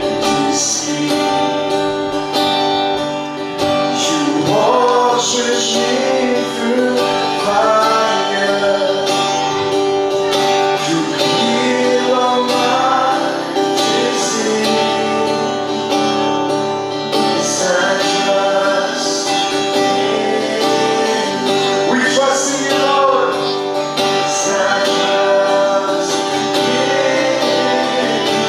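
Worship song with guitar and singing.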